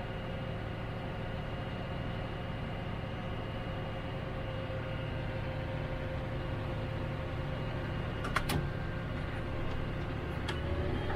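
Trail-grooming tractor's engine idling steadily, heard inside the closed cab, with a faint steady whine over the hum. A couple of short clicks near the end.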